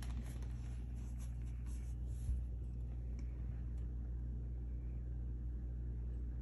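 Quiet room tone with a steady low hum, a few faint light ticks in the first two seconds and a soft knock a little over two seconds in.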